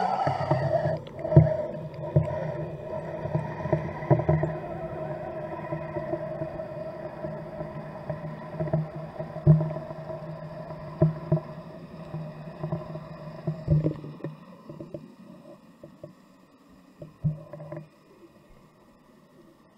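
Boat engine hum heard underwater through the camera housing, a steady multi-tone drone that fades as the camera sinks and is nearly gone near the end. Irregular knocks run through it as the current knocks the camera housing around.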